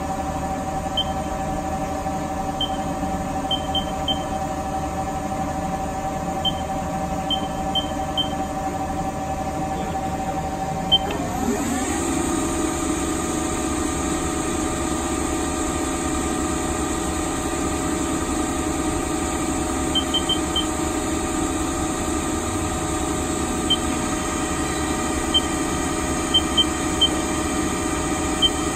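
Haas SL20T CNC lathe spindle running with a steady whine. It ramps up to a higher speed about eleven seconds in and then holds, with short high ticks now and then.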